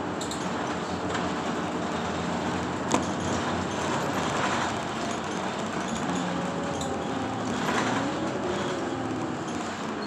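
Bus heard from inside its cabin while under way: engine and drive running with a pitch that glides up and down, over steady road noise, with a single sharp click about three seconds in.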